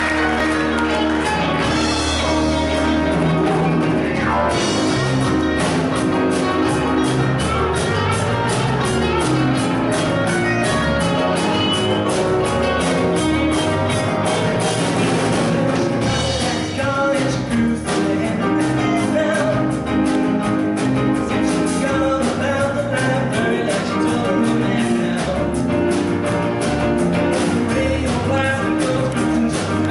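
Men's vocal group singing an upbeat rock-and-roll style number into microphones over a steady driving beat, which starts about four seconds in.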